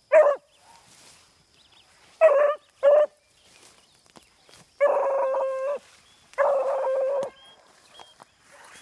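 Beagle pup giving tongue while running a rabbit: three short barking chops, then two long drawn-out bays of about a second each on a steady pitch.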